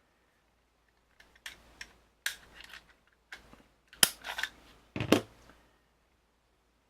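Metallic clicks and short scrapes of a Smith & Wesson M&P Shield pistol being field-stripped by hand, its slide and takedown parts worked, with two sharp clicks about four and five seconds in.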